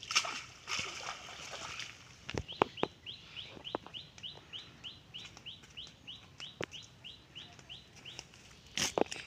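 A bird calling a fast run of short rising notes, about three or four a second, for some six seconds. Before it, a rush of water dripping and splashing off a cast net lifted from a pond, and a few sharp knocks along the way.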